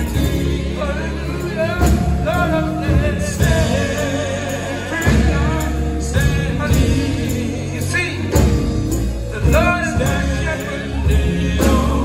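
Male gospel quartet singing live to electric bass, electric guitar and drums, the lead voice bending and sliding between notes.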